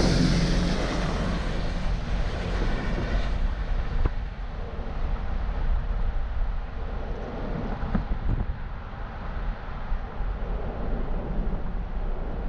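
A car drives past close by: its tyre and engine noise swells at the start and fades away over the first few seconds. A steady low rumble of street traffic continues underneath.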